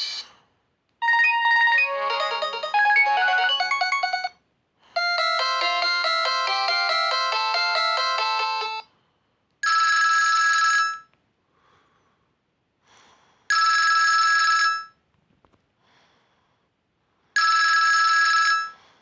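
Sony Ericsson J110i ringtones played through a Nokia C2-01 phone's loudspeaker. Two short electronic melodies of quick notes play one after the other. Then a telephone-style ring sounds three times, each ring a little over a second long and about four seconds apart.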